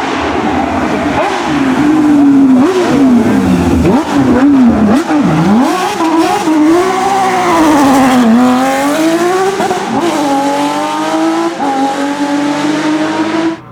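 Porsche racing car engine at full effort, its note swinging quickly up and down through gear changes and lifts off the throttle, then holding a steadier, slowly climbing pitch over the last few seconds.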